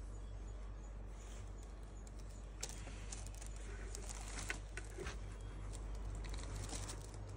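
A kitten playing on a tatami mat, with faint scattered taps, scratches and rustles over a steady low hum.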